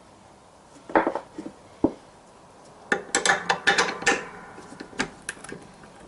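Scattered knocks, clicks and light rattles of a wooden workpiece and tools being handled at the lathe: a few taps about a second in, then a quick flurry from about three to four seconds in, and a couple more near the end.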